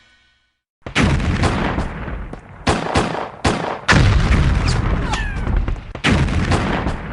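Recorded battle sound effect of gunfire and cannon blasts: a string of sharp, loud shots and booms with rumbling tails, irregularly spaced. A couple of short falling whistles sound about midway through.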